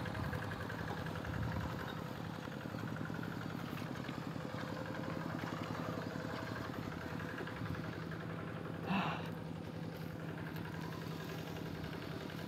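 Two-wheel hand tractor's single-cylinder diesel engine running steadily at an even idle-like speed, with a brief sharper noise about nine seconds in.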